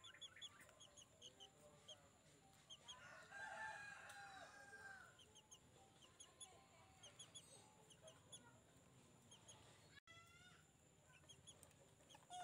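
A rooster crowing faintly, one call of about two seconds starting about three seconds in, over a steady run of short, high, repeated chirps.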